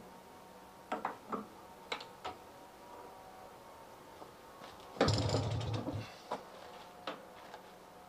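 Small clicks and knocks of hands working on a British Seagull outboard motor that is not running, then about five seconds in one louder, second-long rush and thump.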